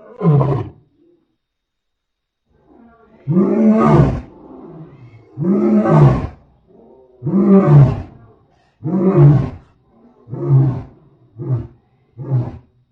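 Lion roaring bout: one short call, a pause, then a series of deep roars that get shorter and come faster, ending in quick grunts.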